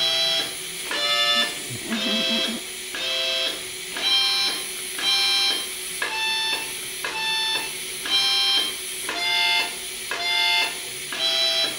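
A harmonica sounded by an automatic harmonica-playing machine, running through a pre-programmed tune as a slow series of held notes and chords, about one a second with short gaps between.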